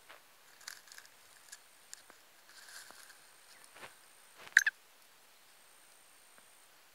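Faint rustling and crackling of dry grass stalks, with one sharp, louder crackle about four and a half seconds in.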